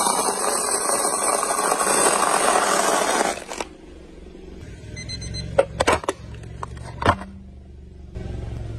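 Brittle coloured strips crunching and crackling under a car tyre for about three seconds, then a few sharp snaps as loose pieces crack.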